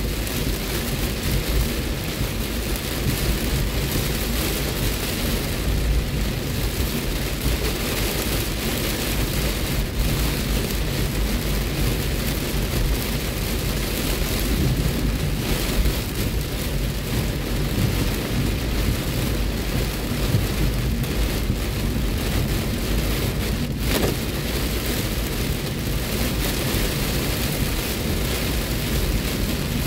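Heavy rain falling on a moving car's roof and windshield, heard from inside the cabin, over a steady low rumble of road and engine noise.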